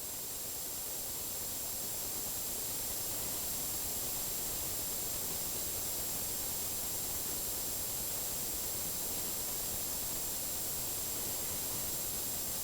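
Steady static hiss with a thin, high, steady tone running through it, swelling slightly over the first few seconds and then holding even.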